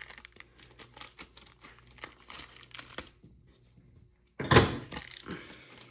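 Plastic packaging crinkling, with small clicking handling noises. It falls quiet about three seconds in, then one loud, short burst of handling noise comes about a second later.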